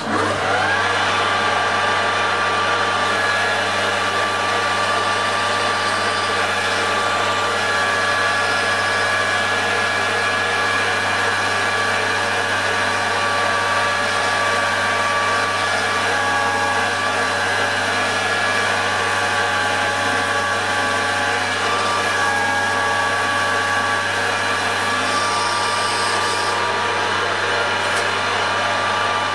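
Metal lathe switched on and running steadily, its motor starting abruptly and holding an even hum.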